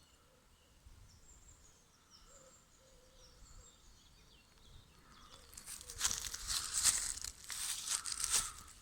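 Faint woodland birdsong, scattered high chirps with a few lower calls. About five and a half seconds in, a much louder, irregular crackling rustle takes over.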